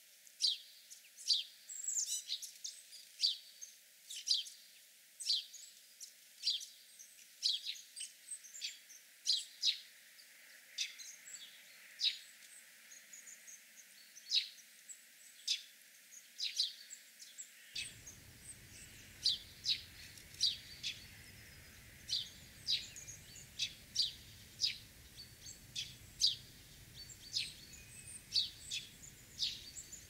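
House sparrows chirping: a steady run of short, sharp chirps, about one or two a second. A faint low background rumble comes in a little over halfway through.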